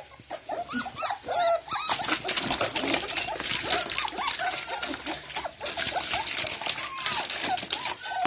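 Shih Tzu puppies whining and yipping over and over in short high calls, eager for the bottle held at their pen. From about two seconds in, a dense scratchy clatter runs beneath the calls.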